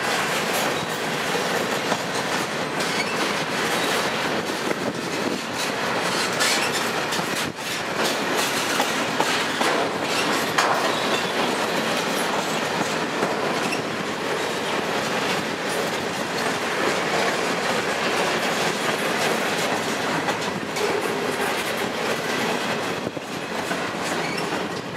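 Freight train rolling past close by, its empty centerbeam flatcars and boxcars giving a steady, loud rumble and rattle of wheels on rail, with scattered sharp clicks of wheels over the rail joints.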